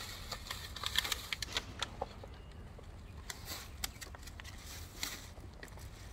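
Dry cat food being served: a rustle with a dense clatter of small clicks for about two seconds, then scattered single clicks.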